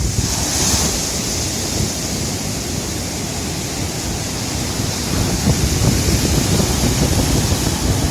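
Sea surf washing onto the shore, with wind buffeting the microphone in a steady low rumble.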